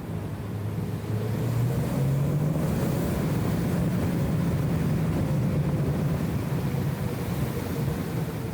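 BMW E34 M5 Touring's straight-six engine heard from the cabin, its note rising as the car accelerates about a second in, then holding steady and easing off slowly. The sound is dulled and buzzy from the camera's wind filter.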